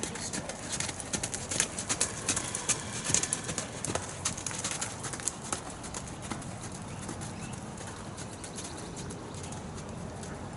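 Hoofbeats of a horse trotting on a sand arena, a quick run of strikes that is loudest in the first few seconds and then grows fainter.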